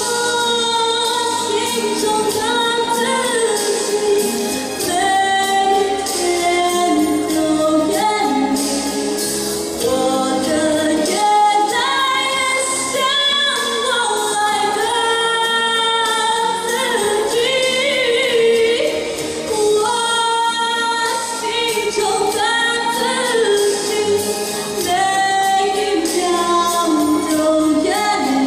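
A woman singing a Chinese-language song into a handheld microphone over instrumental accompaniment, holding long, sliding notes.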